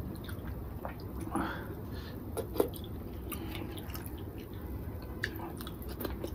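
Rice and curry gravy being mixed by hand on a ceramic plate: soft squishing with scattered small clicks of fingers on the plate, along with chewing.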